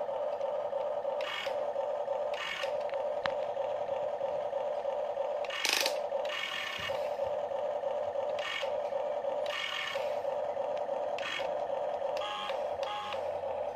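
Huina RC excavator working: a steady electric hum runs throughout, with short whirring bursts every second or two as its motors drive the tracks and arm. The loudest burst comes about six seconds in.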